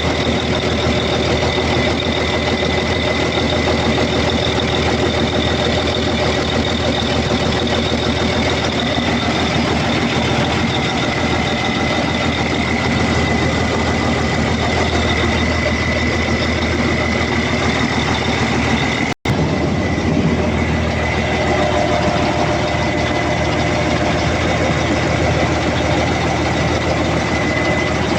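Freshly overhauled Cummins QST30 V12 diesel engine idling steadily under test, with a steady high-pitched whine over the engine. The sound cuts out for an instant about two-thirds of the way through, then carries on.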